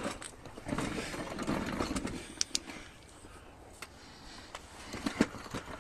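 Handling noises of someone moving about and picking up gear: rustling and scuffing for the first couple of seconds, then a few scattered sharp clicks and taps.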